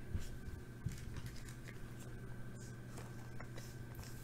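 Faint sliding and clicking of glossy Topps Chrome Sapphire trading cards handled in a stack, one card being moved to the back, with a few light scrapes and taps over a steady low hum.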